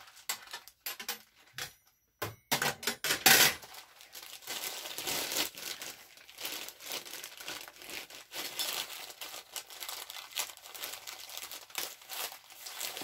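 Metal parts knock against a glass stovetop a few times in the first few seconds, the loudest about three seconds in. After that, plastic crinkles and rustles steadily as it is handled.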